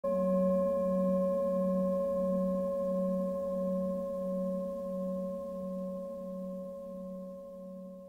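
Singing bowl struck once and left ringing. A low hum wavers about one and a half times a second under several higher, steady overtones, and the whole slowly dies away.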